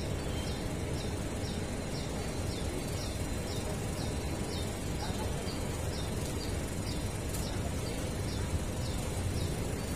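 Steady low background rumble, with a bird's short high chirp repeated evenly about twice a second.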